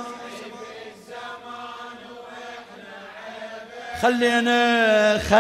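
A man's voice chanting long, held wordless notes through a microphone and PA. It is soft for the first four seconds, then comes in loud on a steady drawn-out note about four seconds in.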